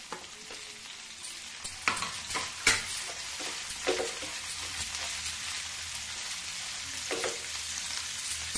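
Sliced onions sizzling in hot oil on a medium-low flame, as they start to fry. A wooden spatula stirs them with a few sharp scrapes and knocks against the pan, several about two to four seconds in and another near seven seconds.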